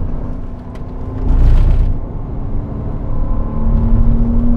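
Porsche Cayman 987 flat-six engine running hard on track, heard from inside the cabin along with road and wind noise; its note dips and then climbs steadily as the car accelerates. A loud rumbling rush comes about a second and a half in.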